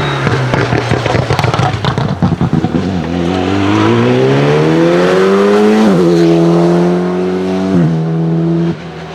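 Alpine A110 R-GT rally car's turbocharged 1.8-litre straight-four crackling and popping from the exhaust at low revs. It then accelerates hard with the engine note rising for about three seconds, shifts up about six seconds in and again a second and a half later, and the sound drops away sharply near the end.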